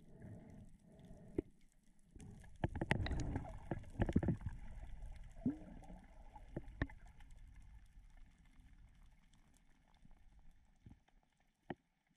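Water sloshing and gurgling around a GoPro in its waterproof housing during a spearfishing dive, with scattered sharp clicks and knocks. The water noise is loudest a few seconds in, then dies away toward the end.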